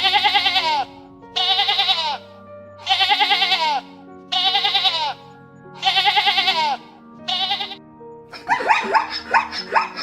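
Six bleats about a second and a half apart, each a wavering call just under a second long and the last one shorter. About eight and a half seconds in, a quick run of high, falling yelps, typical of a puppy, starts. Background music plays throughout.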